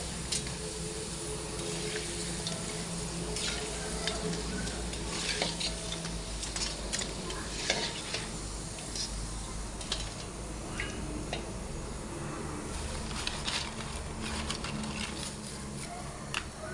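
Food frying and sizzling in a pan while it is stirred, the utensil clicking and scraping against the pan again and again.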